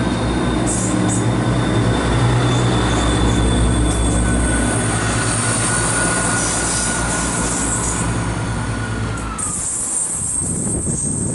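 Class 170 Turbostar diesel multiple unit pulling away and passing close by, its diesel engines running under power with a steady whine over them. About nine seconds in the engine sound drops away, leaving high squealing from the wheels on the rails.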